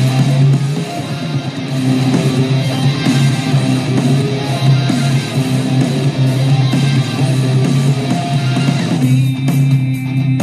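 Heavy metal music led by electric guitar, with the full band texture dropping away abruptly about nine seconds in.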